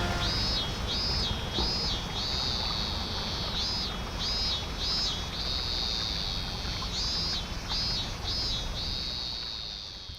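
A high-pitched animal call repeating in short pulses, about three a second, broken every few seconds by a longer held note, over a low outdoor rumble.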